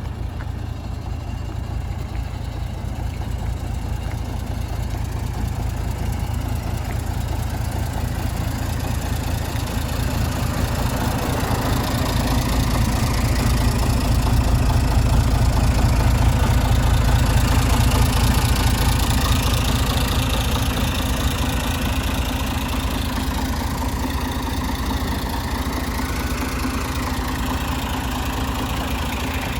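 Mercedes-Benz O307 city bus's diesel engine running with road noise, heard from inside the passenger cabin while driving. The sound grows louder over the first half and eases off a little toward the end.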